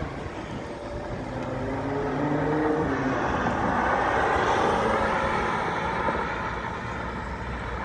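Ferrari 812 Superfast's V12 engine accelerating, its pitch rising as it approaches. It is loudest about four to five seconds in as it passes close by, then eases off as it pulls away.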